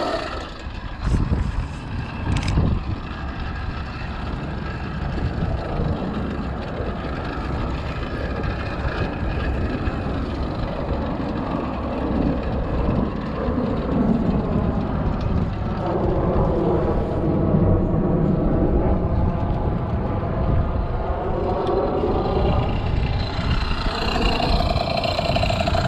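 Two-stroke motorized bicycle engine running while riding, its pitch rising and falling with the throttle, over a steady low rush of wind on the microphone. Two sharp knocks come about one and two and a half seconds in.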